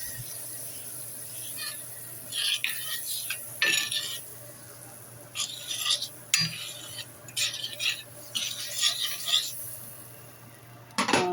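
A utensil scraping and pushing butter around a flat skillet in short, irregular strokes, with a few small metallic clinks against the pan.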